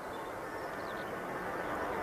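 Jet airliner noise slowly growing louder as the aircraft approaches, with small birds chirping faintly over it.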